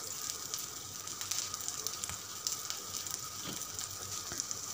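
Hot oil sizzling softly in an iron kadai as ginger paste fries with a bay leaf, cumin seeds and green chillies: a steady low hiss with faint crackles.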